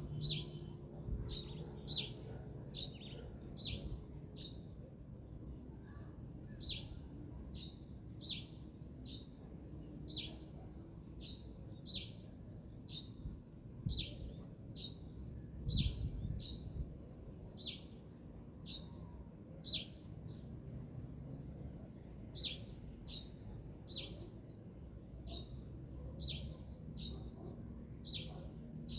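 A bird chirping over and over: short, high, falling chirps about once or twice a second, over a steady low rumble of wind, with a couple of low thumps midway.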